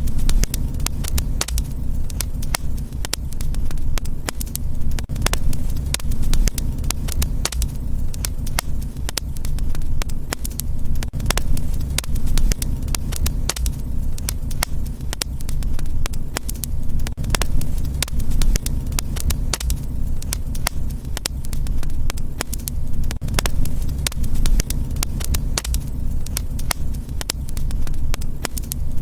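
Fire in a fireplace crackling, with frequent irregular sharp pops over a steady low rumble.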